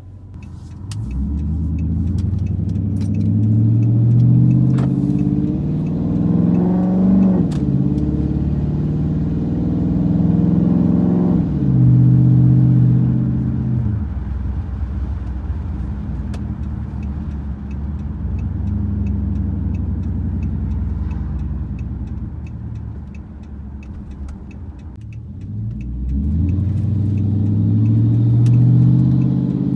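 Straight-piped 5.7-litre Hemi V8 of a 2013 Chrysler 300C, heard from inside the cabin, its catalytic converters gutted and its mufflers and resonators cut out. The exhaust note climbs in pitch under acceleration, drops briefly about seven seconds in, climbs again, then falls away and holds steady at cruise before rising under acceleration again near the end.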